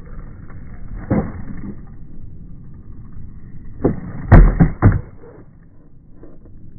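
Skateboard flip trick in slowed-down audio, low and muffled: wheels rumbling on the concrete, a single knock about a second in, then the tail pop just before four seconds and a quick run of heavy clacks as the board lands under his feet, the loudest near four and a half seconds.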